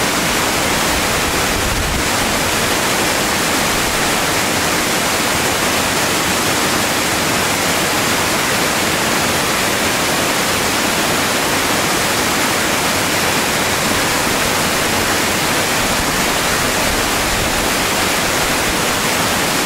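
Waterfall pouring down steep rock slabs in a steady, even rush of water.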